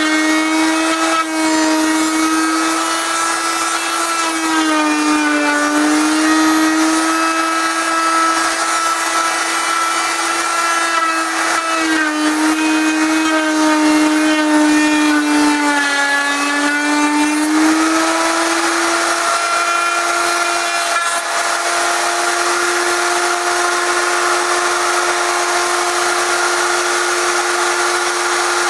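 Table-mounted wood router running at full speed with a high whine, routing a groove in a wooden box piece. The pitch sags several times as the bit takes load in the cut, then holds steady for the last third.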